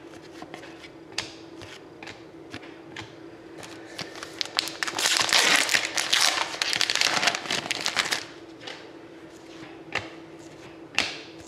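Foil wrapper of a trading-card pack being torn open and crinkled for about three seconds in the middle, with a few light clicks of cards being handled before and after.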